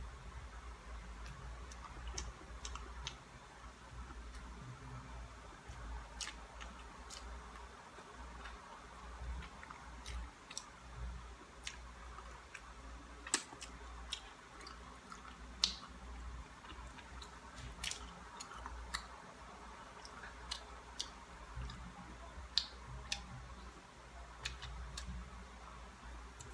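A person chewing and smacking her lips while eating a large banana, with many separate sharp mouth clicks, over a low steady hum.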